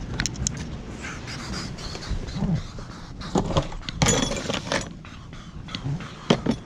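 Scattered metallic clinks and knocks of scrap metal being handled, with a cluster of them about four seconds in, over a steady low vehicle rumble.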